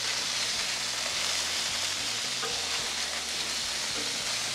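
Beef burger patties and jalapeños frying on a hot Blackstone flat-top griddle, a steady sizzle. The griddle top is at about 425 to 450 degrees and smoking.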